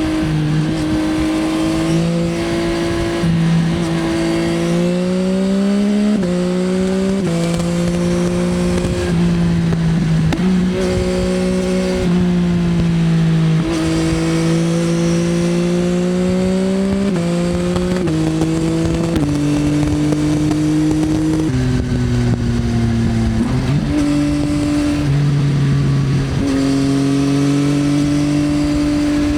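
2024 Yamaha XSR900's inline-three engine through an Akrapovič Racing Line exhaust, running under load. Its pitch climbs and then steps down again and again as the bike accelerates and shifts through the gears.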